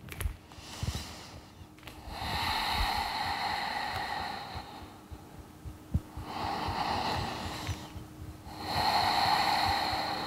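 A woman breathing slowly and audibly into a close microphone: three long breaths, each a couple of seconds long.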